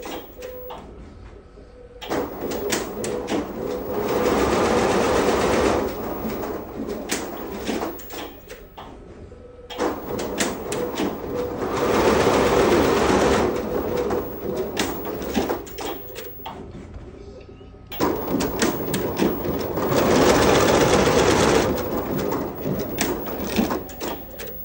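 Multi-head computerized embroidery machine running, its needles stitching in a rapid clatter of clicks. The noise swells louder for about two seconds at a time, roughly every eight seconds.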